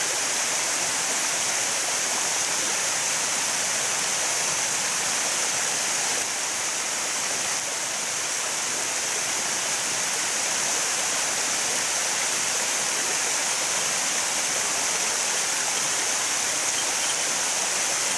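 Water spilling in a sheet over a concrete erosion-control (sabo) dam into the pool below: a steady, even, hissy rush.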